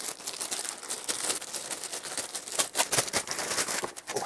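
Parcel packaging crinkling and rustling as it is unwrapped by hand, a quick irregular run of small crackles.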